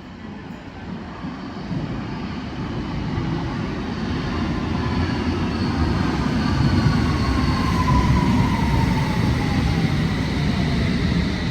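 A London Underground S8 Stock train on the Metropolitan line pulling into the station. Its rumble grows steadily louder for the first several seconds, then holds. A motor whine falls in pitch as the train slows.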